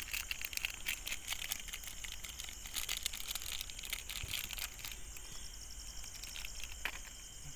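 Steady high-pitched insect chirring, with a dense run of quick crackling clicks over the first five seconds that thins out after.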